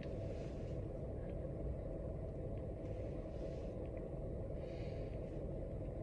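Steady low background rumble, with three soft, short hisses: one at the start, one a little after three seconds and one near five seconds.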